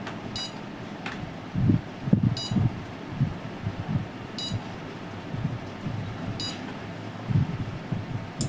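Luminous home inverter's buzzer giving four short high-pitched beeps, evenly about two seconds apart, the warning it sounds while running on battery backup with mains off. A sharp click comes near the end.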